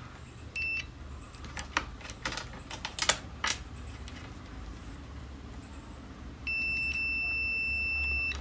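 Multimeter continuity beeper: one short beep, a few light clicks, then a steady beep held for about two seconds near the end. The steady beep is the sign of a shorted IRF740 MOSFET from the inverter's switching stage.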